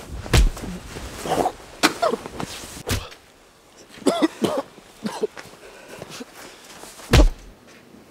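A struggle in deep snow: heavy thumps and scuffling, with short strained grunting cries between them. The loudest thump comes about seven seconds in.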